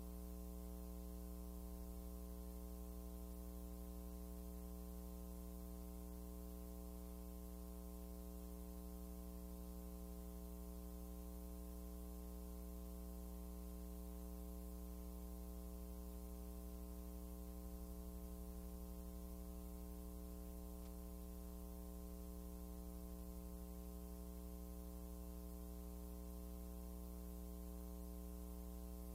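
Steady electrical mains hum with a stack of even overtones, unchanging throughout, over faint hiss on an old film soundtrack.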